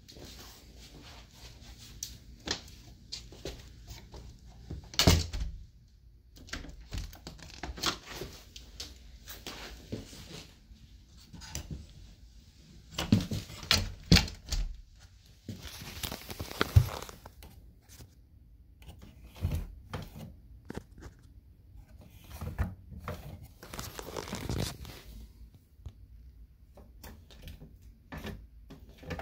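Irregular clicks, knocks and thunks from a door worked with a 3D-printed foot-pedal opener, whose pedal pulls a cord that turns the doorknob and frees the latch. The loudest knocks come about 5 seconds in and twice more in the middle, and two longer, noisier stretches come in the second half.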